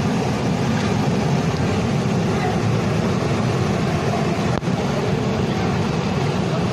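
Steady, loud rushing of a fast, muddy flash-flood torrent pouring down a street. There is a brief click about four and a half seconds in.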